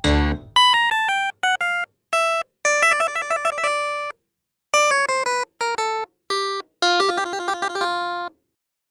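Background music: a melody of short, clear picked or keyboard-like notes in quick phrases, broken by several brief silent gaps and stopping a little before the end.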